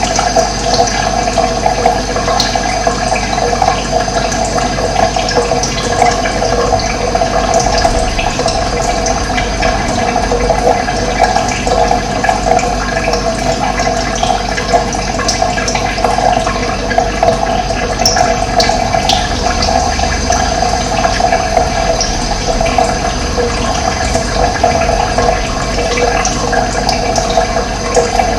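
Steady rushing of running water, unbroken throughout, with a few faint high bird chirps now and then.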